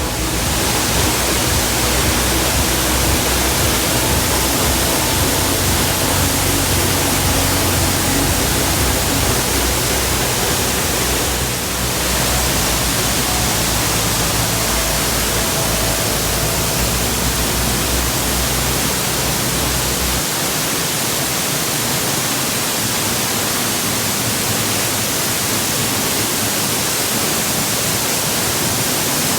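Steady roar of a large waterfall, the water crashing down in a loud, even rush. The deep rumble underneath thins out about two-thirds of the way through.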